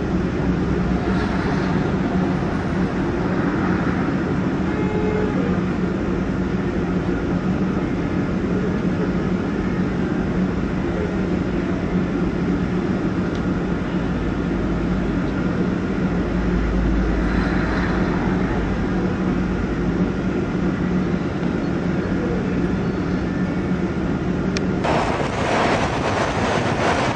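Steady vehicle engine rumble with a constant low hum. About 25 seconds in it cuts to louder wind and road noise from a moving vehicle.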